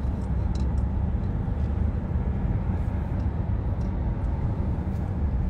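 Steady low rumble of a vehicle heard from inside its cabin.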